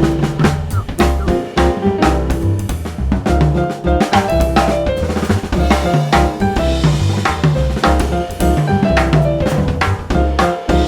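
Background music with a drum kit playing a steady beat, a bass line and pitched melody notes.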